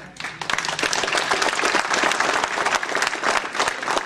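Audience applauding: many people clapping at once, swelling up within the first half second.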